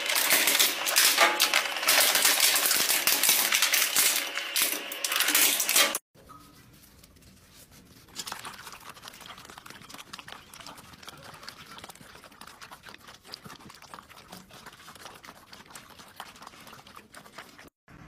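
Twin-shaft shredder crushing a red plastic object: loud, dense crackling and crunching that cuts off suddenly about six seconds in. After that, much quieter, a litter of puppies eating from a bowl, with faint chewing and clicking.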